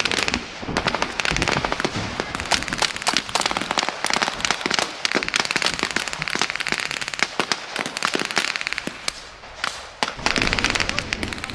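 Blank gunfire from rifles and machine guns in a mock battle: dense, overlapping sharp shots with hardly a gap. It thins out about eight seconds in and picks up again near the end.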